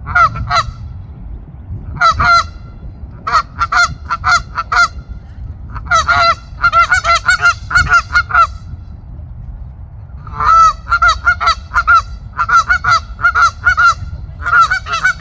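Canada geese honking in bouts of short, rapid honks separated by brief pauses. The bouts grow longer later on, with a long unbroken run in the last third, over a faint low rumble.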